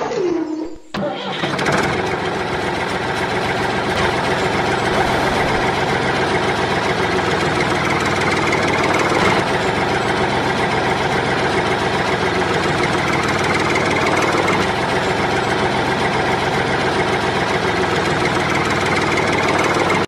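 Tractor engine starting about a second in, then running steadily.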